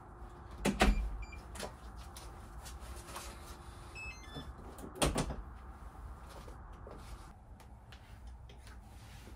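Apartment front door with a digital keypad lock: two heavy door thuds about four seconds apart, with a short beep after the first and a quick run of electronic lock beeps at different pitches just before the second. Faint light clicks and rustling follow.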